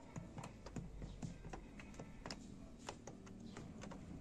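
Faint, irregular clicks of a Samsung washer-dryer's control-panel buttons being pressed one after another, with no beep: the panel's key sound is switched off.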